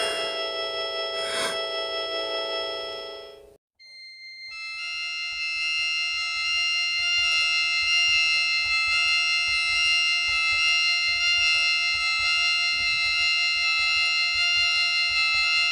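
Music of sustained, held chords with two short hits near the start. The chords fade out to a moment of silence about three and a half seconds in, then a new held chord swells in a second later and rings on steadily.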